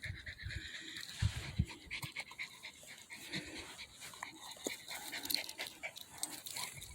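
Dog panting, with a few low thumps in the first two seconds.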